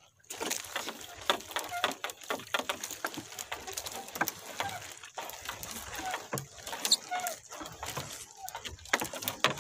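Wet nylon gill net being hauled by hand over the side of a small wooden outrigger boat: many irregular small clicks, taps and patters as the net and dripping water come aboard, with a few faint short chirps now and then.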